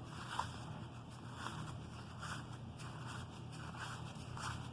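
Cardboard trading cards being handled and slid one after another, a series of short soft swishes about once a second with a small click near the start, over a steady low hum.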